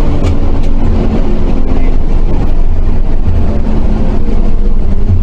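Diesel engine of an East Java intercity bus running under way, heard from inside the cabin: a loud, steady low drone with road rumble.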